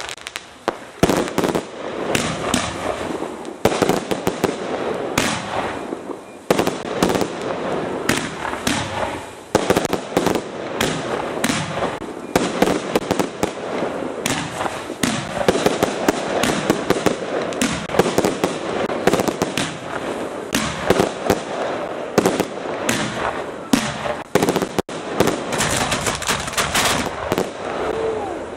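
A fireworks display going off: many sharp bangs every second, one on top of another, over a continuous crackle.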